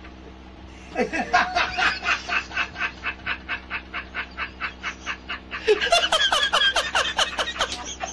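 Laughter in rapid, evenly spaced ha-ha bursts, about four or five a second, starting about a second in and breaking into a louder, higher-pitched burst about six seconds in.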